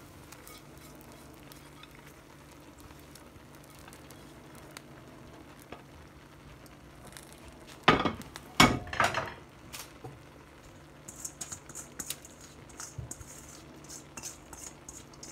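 Hot tadka of oil with whole dried red chillies and cumin seeds poured over biryani rice in a pot: a short loud burst of sizzling and pan noise about eight seconds in, then faint crackling of the hot oil on the rice.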